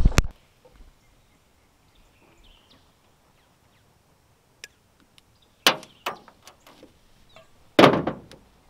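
A few sharp knocks and thumps on a metal jon boat, with a loud pair at the very start, a loud thud about two-thirds of the way through and the loudest one near the end, and quiet stretches between.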